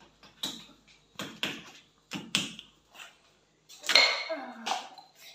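A steel tumbler knocking and clattering against a kitchen counter in a string of sharp knocks about half a second apart, the loudest about four seconds in, as a frozen homemade ice pop is worked loose from it.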